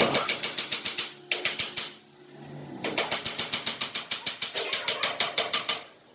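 Ratchet wrench being worked fast, clicking about ten times a second in three runs, the last and longest lasting about three seconds.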